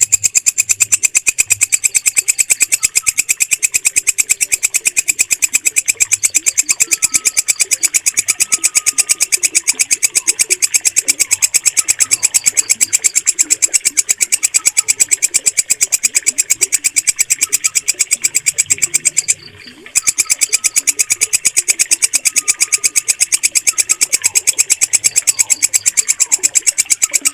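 Walang kecek, a green bush cricket, calling: a fast, even train of sharp, high chirps that keeps up steadily. It breaks off briefly about nineteen seconds in, then resumes.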